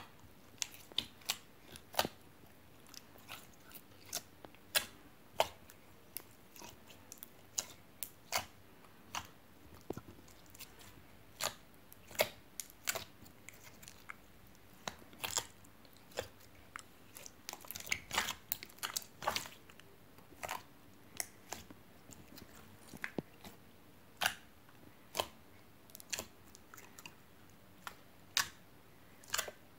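Pink slime being kneaded, squeezed and folded by hand in a glass dish, giving irregular wet clicks and pops, a few a second, in a thicker cluster about two-thirds of the way through.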